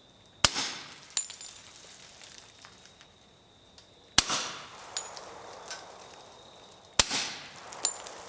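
Three handgun shots, about 3 seconds apart, each followed by a short echoing tail, with fainter sharp clicks in between.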